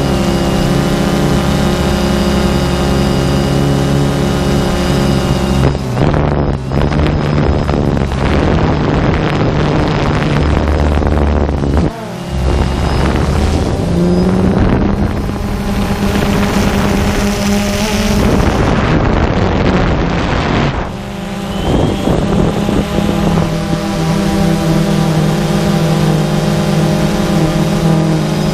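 A drone's electric motors and propellers heard from its onboard camera: a steady whine of several tones over a low hum. Between about six and twenty-one seconds it turns rough and gusty with wind noise on the microphone, then settles back into the steady whine.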